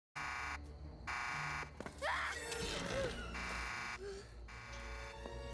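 Electrified fence's warning alarm buzzing in repeated pulses about a second apart, the signal that the fence power is coming back on. Brief shouts come in between the pulses.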